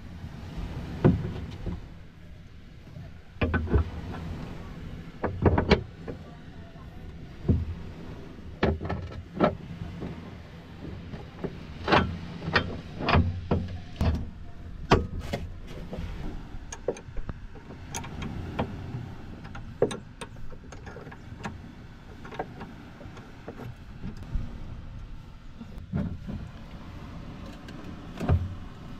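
Irregular metal clicks and knocks as a propeller shaft's coupling is worked onto the drive of a small petrol boat engine by hand, with the engine not running. A steady low rumble of background noise runs underneath.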